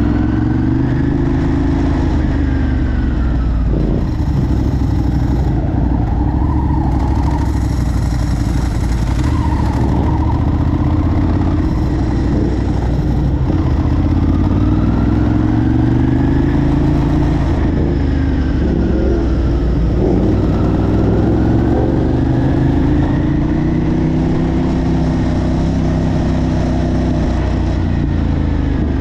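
Ducati Hypermotard motorcycle engine running loudly, its pitch rising and falling in slow sweeps several times as it gains and loses revs.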